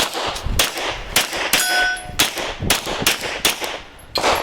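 A string of rapid 9mm Glock pistol shots, about nine in quick succession at roughly one every half second, with steel targets ringing as they are hit.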